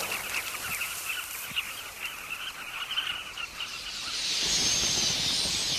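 Many small birds chirping at once in quick, overlapping calls. About four seconds in it turns into the higher, denser twittering of a large flock of red-billed queleas.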